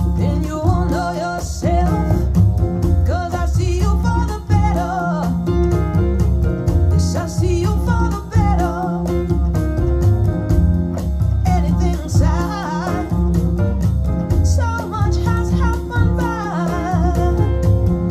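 A recorded song with a singing voice, guitar and a heavy, steady bass line, played back over hi-fi floorstanding loudspeakers.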